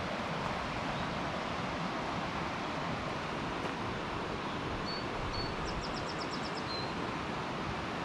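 Steady rushing noise of a waterfall. About five seconds in, a brief high call: two short whistled notes, a quick trill of rapid notes, then one last note.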